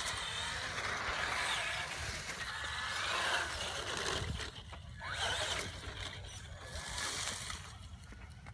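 Traxxas Slash electric RC truck driving, its motor whine rising and falling in pitch, over a steady rushing hiss from the tires on grass, leaves and concrete.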